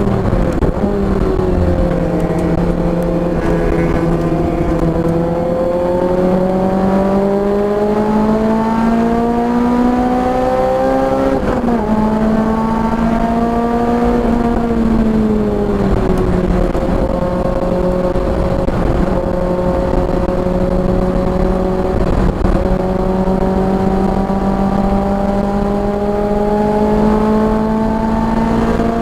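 Car engine running hard on a racetrack lap, its revs climbing slowly, dipping sharply once as if on a gear change, then falling away as the car slows before pulling steadily up again. Constant wind and road noise run underneath.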